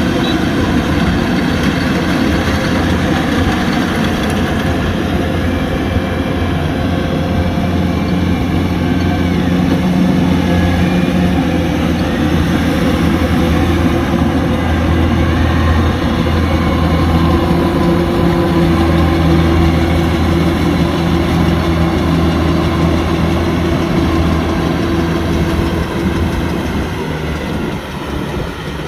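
Kubota DC-105X combine harvester running steadily at working speed, its diesel engine giving a loud, even low hum over a mechanical rush. The note shifts slightly about halfway through, and the sound eases a little near the end.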